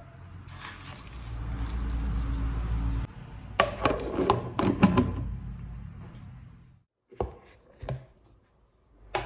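Chicken being mixed by hand with spices in a glass bowl, a steady soft wet rustling, then a quick series of sharp plastic clicks and knocks as a plastic lid is pressed onto the bowl. Two more short clicks come a few seconds later.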